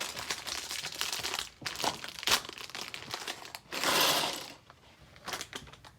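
Plastic LEGO parts bags crinkling and being crumpled in the hands, with small clicks of loose pieces, in irregular bursts; the longest rustle comes about four seconds in.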